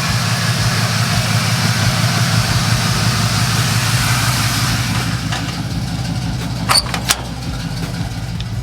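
A Chevy C10 pickup's engine idling steadily. Two sharp clicks come just before seven seconds in.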